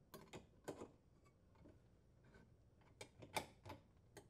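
Faint clicks and taps of a sheet-metal junction box cover being set onto the metal box and pressed into place: a few in the first second, a cluster about three seconds in, and one more near the end.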